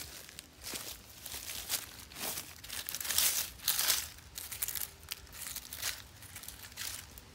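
Dry fallen leaves and forest litter crinkling and crackling as a hand pushes through them, in a run of irregular rustles that are loudest in the middle.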